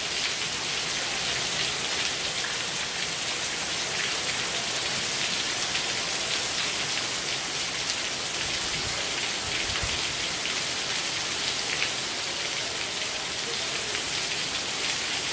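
Heavy rain pouring down onto a swimming pool and paved deck: a dense, steady hiss with scattered ticks of individual drops.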